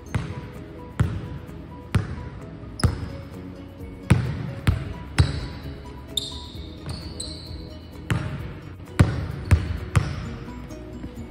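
Basketball dribbled on a hardwood gym floor, about one bounce a second at an uneven pace, each bounce echoing in the big hall. A few high sneaker squeaks come about six seconds in.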